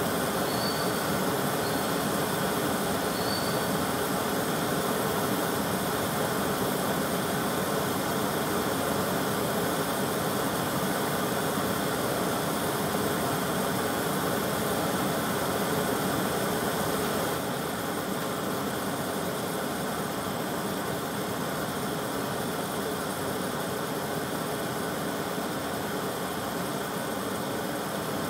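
Gas brazing torches burning with a steady rushing noise as their flames heat a brass part; the noise drops a little about two-thirds of the way through.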